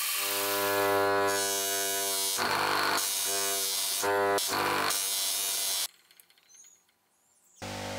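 Electric polishing motor with a buffing wheel on its tapered spindle, running with a steady hum, broken a few times by short noisy rushes as the metal piece is held against the wheel. The sound drops out about six seconds in and the hum returns near the end.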